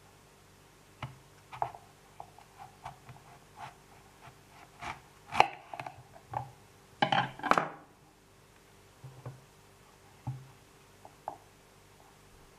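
Kitchen knife cutting through a raw green apple on a wooden cutting board: a run of short crunches and taps, loudest around the middle, then a few scattered taps near the end.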